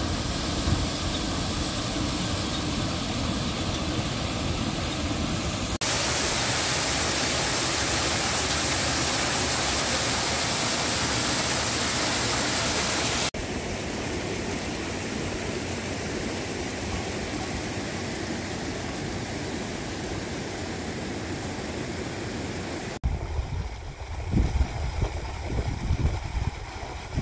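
Rushing water heard in several cuts: water gushing out beneath a traditional stone water mill, a louder steady rush from about six to thirteen seconds in, then a quieter stream. In the last few seconds a river flows behind irregular low rumbles.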